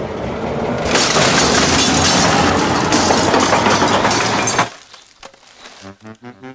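A load of rubbish tumbling out of a garbage truck: a dense clattering crash with breaking glass that lasts about four seconds and cuts off suddenly. A few clicks follow, then light music begins near the end.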